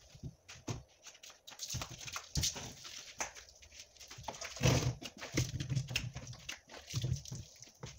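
Hollow knocks and scrapes from a plastic dog house being handled and its roof lifted, with water from a jug splashing onto it and the concrete. The loudest knock is a little past halfway.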